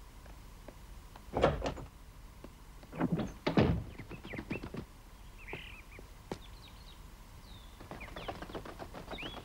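A couple of dull thuds in the first few seconds, then birds chirping, with short twittering calls growing busier near the end.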